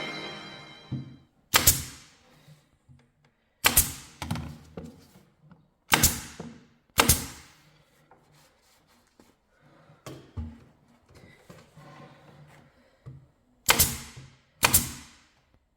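Sharp knocks of wood on wood, six in all at uneven spacing, several of them doubled, with faint handling noises between.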